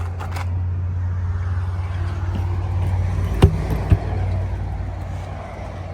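Steady low hum of an idling engine, with two sharp knocks about three and a half and four seconds in.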